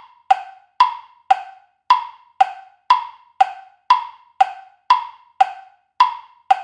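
Quiz countdown timer sound effect: a wood-block tick repeating steadily about twice a second, each tick short with a quick ringing fade, marking the time left to answer.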